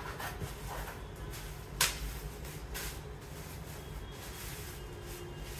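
Cardboard tripod box and bubble-wrap packaging being handled: scattered rustles and crinkles, with one sharp crackle about two seconds in, over a steady low hum.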